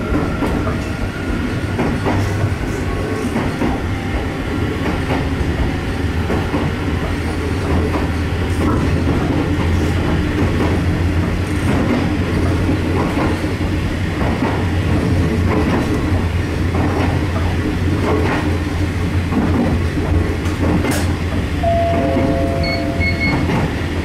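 Toyama Chihou Railway 14760 series electric train running, heard from inside the car. There is a steady low hum of motor and wheel noise with scattered rail-joint clicks. A few brief higher tones sound near the end.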